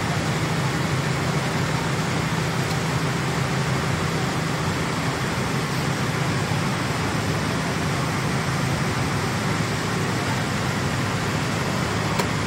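Argon (TIG) welding on carbon steel: a steady hiss from the arc and gas over a constant low hum from the welding machine.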